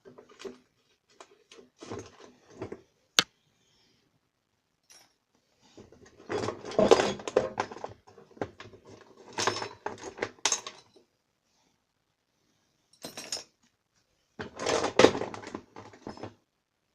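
Small metal hand tools clinking and clattering together as they are handled and set down, in several bouts of rattling separated by short pauses, with one sharp click about three seconds in.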